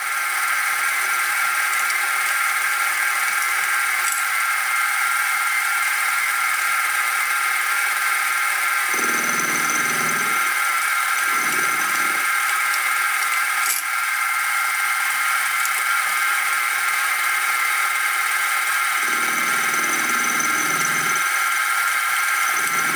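Sieg SX2P mini mill running with a steady high whine while its end mill takes light cuts off the side of a fabricated crankshaft to bring it flush with the crank webs. A lower sound comes in briefly four times: twice around the middle and twice near the end.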